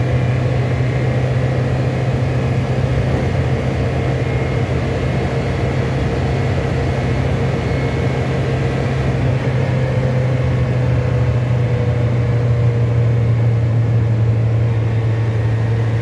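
Diesel engine of a Mercedes-Benz MB 180 D van cruising at about 100 km/h, heard from inside the cab as a steady low drone. The engine has its injection pump turned up and breathes through a Vectra muffler, so the engine itself is what is mostly heard rather than exhaust noise.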